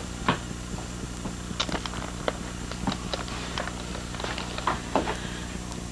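Irregular light knocks and clatter from a toddler handling plastic toys and a cardboard box, over a steady low hum.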